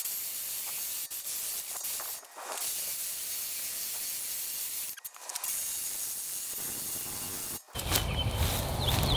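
Faint steady hiss with short dropouts about two, five and seven and a half seconds in. A louder, lower rumbling noise comes in near the end.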